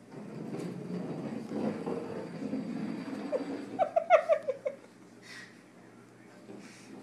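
A person giggling: a quick run of short, falling 'ha' notes about four seconds in, after a low muffled background murmur.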